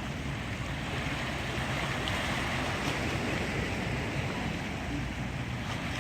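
Harbor water washing and splashing against rocks along the shore, a steady wash that swells a little about two seconds in.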